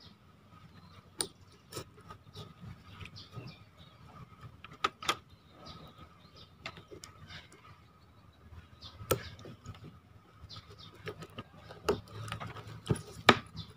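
Scattered small clicks and clinks of drag washers (carbon, Teflon and anodized metal) being stacked by hand into the spool of a Fugu Tora 4000 spinning reel, with a few sharper clicks spread through.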